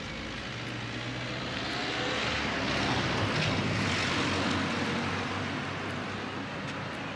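Engine noise of a passing vehicle with a steady low hum. It swells slowly to its loudest about three to four seconds in, then fades again.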